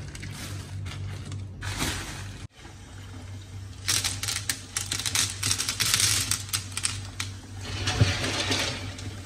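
Clam shells clicking and clattering as hands sift through a heap of clams. After a sudden break about two and a half seconds in, the clams are rubbed together under a running kitchen tap in a plastic colander, with rapid shell clicks over the splash of the water.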